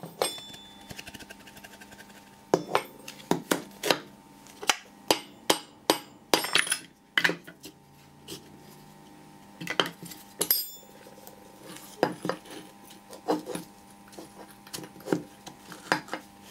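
Irregular sharp metal knocks and clinks of spanners, bolts and the steering valve body against a steel workbench while the valve is being unbolted from its plywood mount. A faint steady hum runs underneath.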